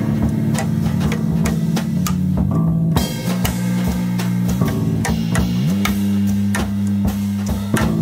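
Small jazz group playing live. An electric bass holds long low notes and slides up a little past halfway, under steady drum-kit and cymbal playing, with a cornet playing along.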